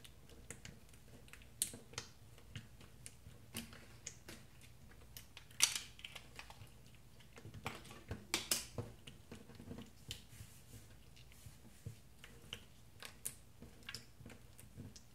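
Fingers poking and squeezing slime: small sticky clicks and pops at irregular intervals, a few louder ones about halfway through.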